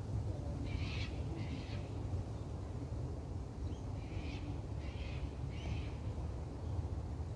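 A bird calling outdoors: two short calls about a second in, then four more in quick succession from about four to six seconds in, over a low steady wind rumble.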